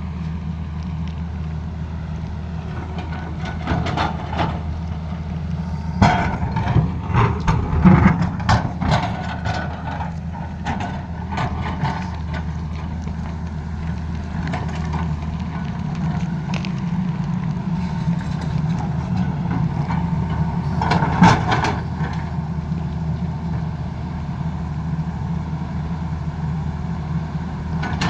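Tata Hitachi excavator's diesel engine running steadily, with bursts of irregular knocks and scrapes from the digging. The bursts come about four seconds in, repeatedly through the middle, and again about two-thirds of the way through.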